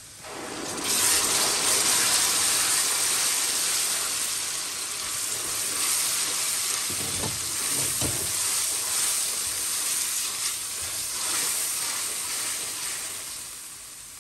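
Mashed tomatoes hitting hot oil and fried onions in a stainless steel kadai: a loud sizzle that rises within the first second, then steady frying as a silicone spatula stirs, with a few low knocks against the pan. The sizzle eases near the end.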